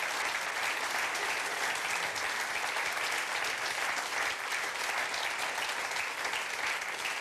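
Audience applauding steadily: dense, even clapping from a seated crowd.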